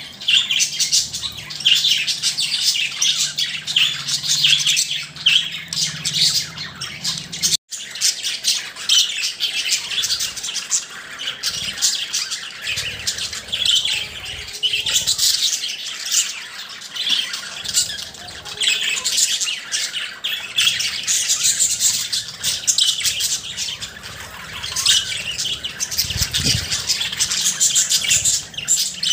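Budgerigars chirping and warbling: a dense, continuous chatter of high chirps and squawks, with a very short break about seven and a half seconds in.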